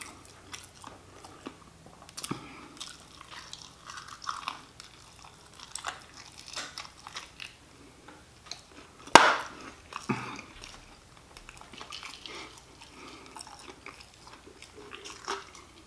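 Close-miked chewing and biting of crispy fried chicken wings, with scattered crunches and small mouth clicks, and one sharp crack about nine seconds in.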